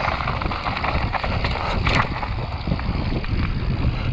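Mountain bike descending fast over a rocky dirt trail: tyres crunching on loose stones, with rapid knocks and rattles from the chain and frame, over a steady rush of wind on the microphone.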